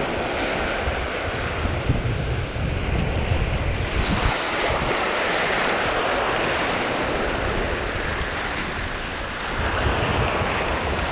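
Surf washing in around the feet at the water's edge, with wind buffeting the microphone. The wind rumble is heaviest in the first few seconds and again near the end.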